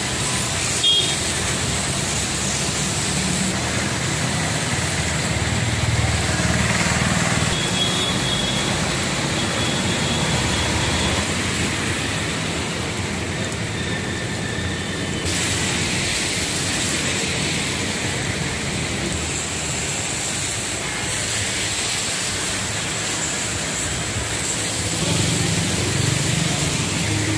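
Heavy rain pouring steadily onto a wet street, with motorbikes and auto-rickshaws running past. The sound changes abruptly about halfway through.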